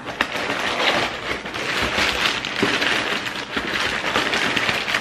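Crumpled brown kraft packing paper crinkling and rustling continuously as it is pulled out of a cardboard shipping box.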